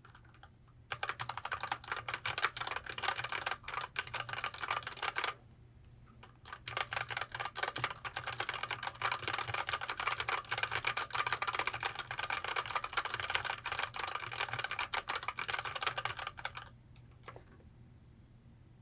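Fast typing on a Heyday full-size wired mechanical keyboard: a run of keystrokes lasting about four seconds, a brief pause, then about ten seconds more, ending with a few last clicks.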